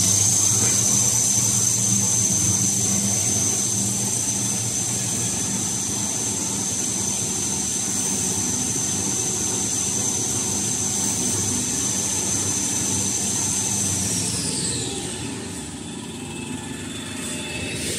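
Kitchen towel paper production line machinery running: a steady high-pitched motor whine over a low hum. The whine falls in pitch and fades after about fifteen seconds as the machine winds down.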